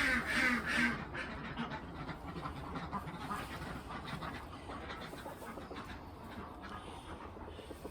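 Ducks quacking in a fast run of loud calls that stops about a second in, followed by fainter calling.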